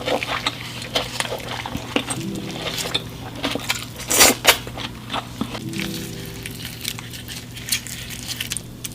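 Close-up eating of a seafood boil: rapid clicks and clinks of utensils and shells being handled, with a louder crackling crunch about four seconds in.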